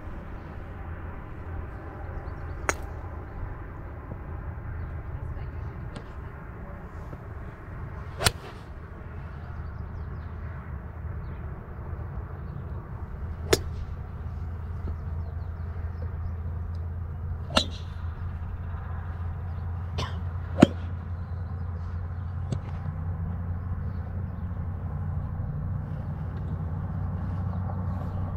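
Golf clubs striking balls on a driving range: several sharp cracks at irregular intervals, the loudest about three-quarters of the way through, over a steady low rumble.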